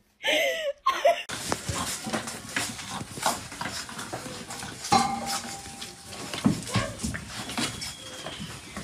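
Two puppies play-fighting: short puppy noises over a stream of scuffling and clicking.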